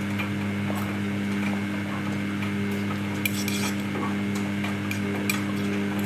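Samsung Ecobubble 8 kg front-load washing machine tumbling laundry in its drum: a steady motor hum with scattered light clicks and taps, a couple louder about three and five seconds in.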